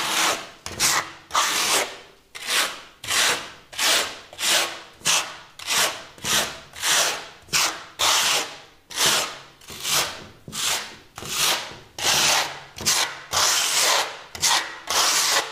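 Steel trowel scraping wet architectural concrete plaster across a primed cement-plaster surface in repeated strokes, about two a second, as a thin single coat is spread on.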